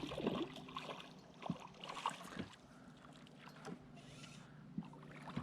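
Faint sounds on board a small fishing boat: scattered light knocks over a steady low hum.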